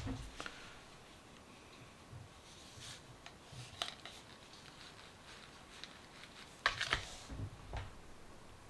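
Light clicks, taps and crinkles of hands handling a highlighter compact and its plastic film, with a sharper click about two-thirds of the way through and a few soft knocks after it.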